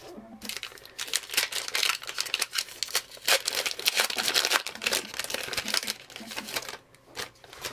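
Wrapper of a baseball card pack being torn open and pulled apart by hand: a dense, irregular crackle of tearing and crinkling that dies down near the end.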